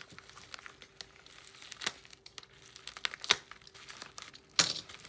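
Crinkling and rustling of a plastic-wrapped mail package being handled, in scattered short crackles, with a louder rustle near the end.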